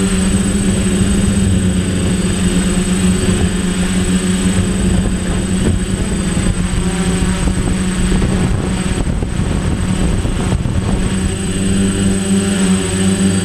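DJI Flame Wheel 450 quadcopter's electric motors and propellers humming steadily, with wind rumbling on the microphone. The hum weakens through the middle and comes back strongly near the end.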